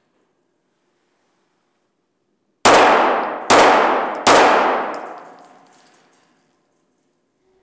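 Three pistol shots from an M&P Shield compact carry pistol, a little under a second apart, starting nearly three seconds in; each shot rings out with a long echo off the walls of an indoor range.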